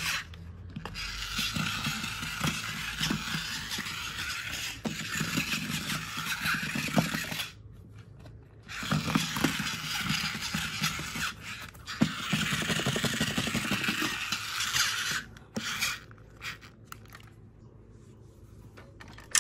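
Battery-powered toy train with spinning plastic gear wheels running on a wooden table: its small motor and gears whirr while the wheels clatter and scrape on the wood. It breaks off for about a second seven seconds in, runs again, then stops about fifteen seconds in, leaving only a few clicks.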